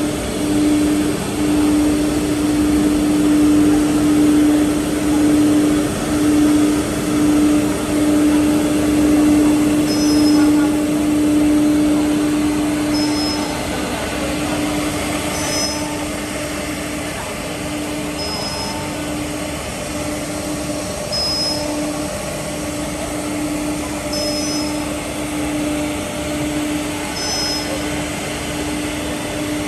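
Holztek single-head CNC wood router running, its spindle giving a steady high hum over loud machine noise, with short high-pitched chirps about every three seconds.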